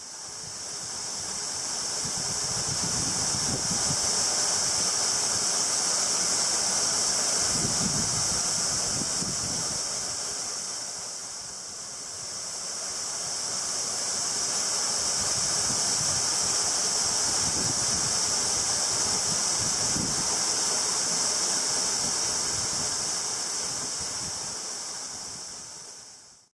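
Waterfall: a steady rush of falling water, fading in at the start, dipping briefly about halfway through and fading out at the end.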